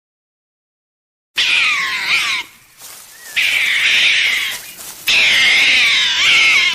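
An animal calling: about a second and a half of silence, then three long, loud, high-pitched cries in a row, each wavering in pitch.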